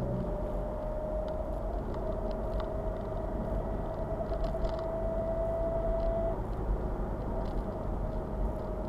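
BMW 116d's 2.0 N47 diesel car on the move: a steady low rumble with a thin whine that rises slowly in pitch, cuts off a little after six seconds and comes back near the end. It is the weird noise that shows up when the car is driven cold, which garages think could be a loose piece of metal in the exhaust after the DPF was removed.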